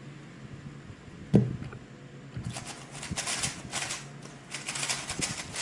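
A single thump about a second and a half in, then the rapid, continuous clicking clatter of a speedcube being turned at high speed during a solve, starting about two and a half seconds in.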